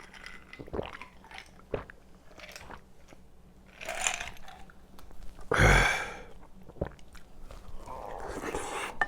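Close-miked eating sounds: chewing and crunching a mouthful of braised kimchi and pork, with a few sharp clicks and a loud breathy burst a little past the middle.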